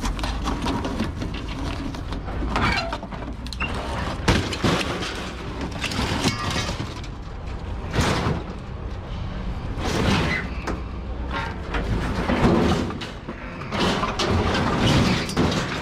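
Sheet-metal clatter, scraping and repeated knocks as a top-loading washing machine is dragged across a steel trailer deck and tipped onto the ground.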